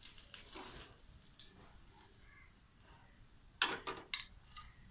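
A metal spatula clatters and scrapes against a plate as a fried cutlet is set down on it. There is a few sharp knocks about three and a half seconds in, the first the loudest, with a lighter click before them.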